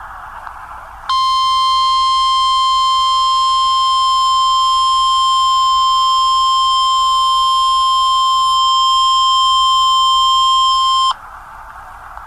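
Emergency Alert System warning tone: one steady, piercing tone near 1 kHz, starting about a second in and cutting off about ten seconds later, with radio static hiss before and after it. It signals that a weather warning message is about to be read.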